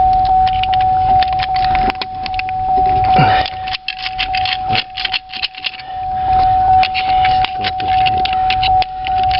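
Small metal parts of a seatbelt retractor clicking and clattering as they are handled. Behind them a steady high tone sounds the whole time, with a faint pulse about three times a second.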